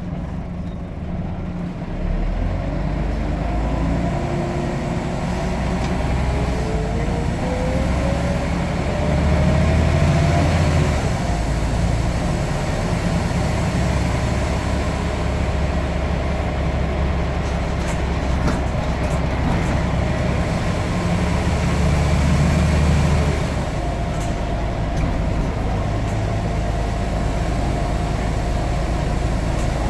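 Scania N94UD double-decker bus running under way, its engine rumbling with a whine that rises in pitch for several seconds as it accelerates, then levels off; a steady whine returns near the end.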